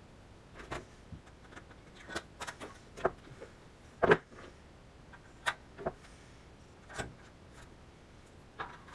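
Handling noise at a workbench: scattered clicks and knocks of small metal rivet parts and a hand tool on the wooden bench top, with the sharpest knock about four seconds in. Near the end a hand blind-rivet tool clicks as it is worked on the thin aluminium sheet.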